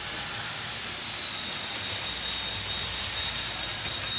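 Model diesel locomotive's sound decoder playing its dynamic braking sound as the train slows: a steady rushing noise with a thin high whine. Faint high clicks join in about halfway through.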